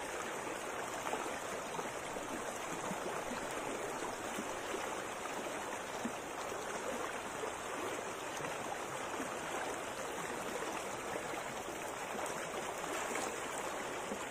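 Shallow stream water running steadily over a rocky bed.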